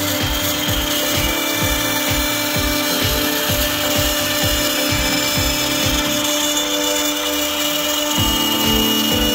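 Desktop CNC router spindle running with a steady whine as its end mill cuts an outline into a wooden board. Background music with a regular beat plays over it, its beat dropping out briefly about seven seconds in.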